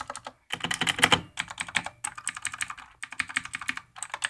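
Redragon K551 mechanical keyboard with clicky blue switches being typed on rapidly: dense runs of sharp key clicks in about four bursts, broken by short pauses.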